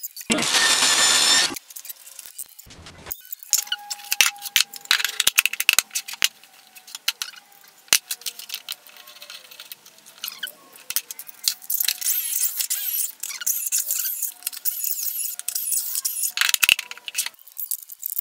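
Workshop noises: a run of sharp knocks and clatter of wooden panels and tools, a loud noisy burst about a second long at the start, and a longer high-pitched whirring stretch in the second half that fits a corded drill boring pocket holes through a jig.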